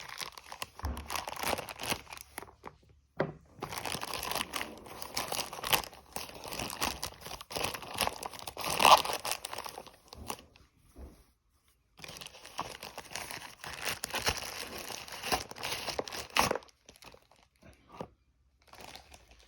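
Package wrapping being torn open and crumpled by hand, in several stretches of crinkling and tearing with a short pause in the middle, a sharp loud rip about nine seconds in, and only faint handling noises near the end.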